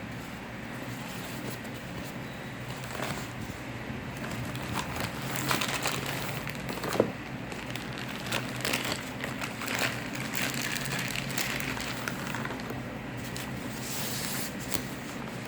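Packaging crinkling and rustling as it is handled, in irregular bursts with a sharp click about seven seconds in, over a steady low hum.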